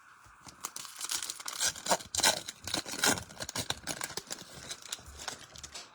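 Foil trading-card pack wrapper being torn open and crinkled, an irregular crackling with sharp snaps that goes on for about five seconds.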